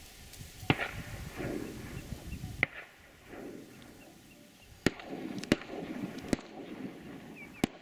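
Shotgun shots at a flock of incoming ducks: about six sharp cracks, three of them in quick succession a little under a second apart about five to six and a half seconds in.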